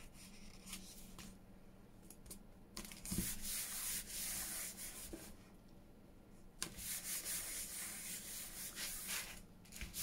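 Paper being rubbed and smoothed by hand on a card board, in two stretches of soft scraping with a few light taps.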